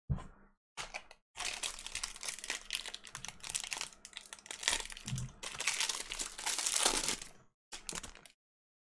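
A foil Topps 2020 Baseball Series One pack wrapper being torn open and crinkled by hand, crackling for about six seconds with a few short rustles after. There is a short knock at the start.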